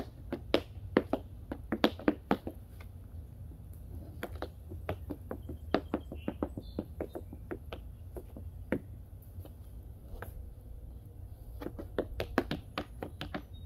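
Tap shoes striking a thin board laid on the ground: a fast, dense run of sharp taps, thinning to scattered taps through the middle and picking up into quick runs again near the end.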